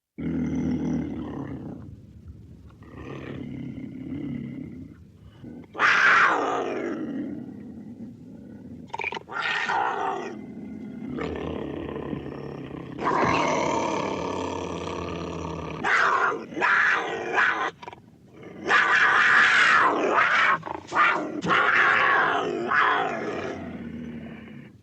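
Cougar calls from an old sound-effects recording: a string of growls and roar-like cries of different lengths, one about six seconds in falling steeply in pitch, with the loudest, harshest calls in the second half.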